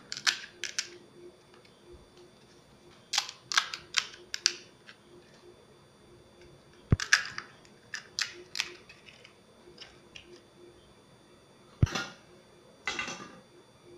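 Crisp fried puris (golgappa shells) cracking as a finger pokes open the top of each, in several short bursts of sharp crackling a few seconds apart.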